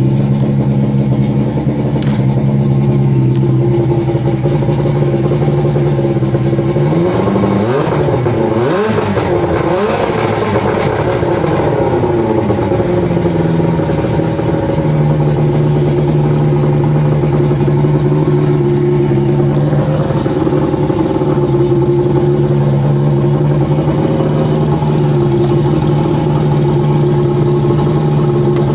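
An engine running steadily. About seven seconds in, its pitch swings up and down for several seconds, then settles back to a steady run.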